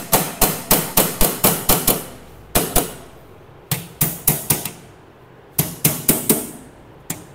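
Hand hammer striking the metal battery box cover to knock it into place: quick runs of sharp blows, several a second, in bursts broken by short pauses.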